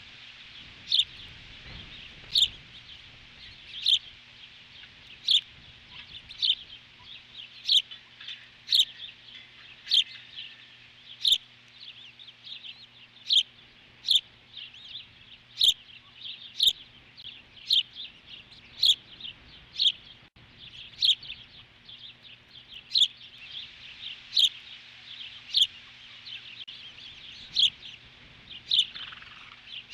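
Osprey calling at the nest: a long series of short, sharp, high chirps, about one a second, with a faint steady electrical hum underneath.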